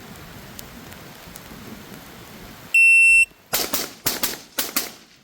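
Steady rain hiss, then a shot timer's start beep: one loud, steady high tone lasting about half a second. A quick string of about six gunshots follows, fired in three rapid pairs within about a second and a half.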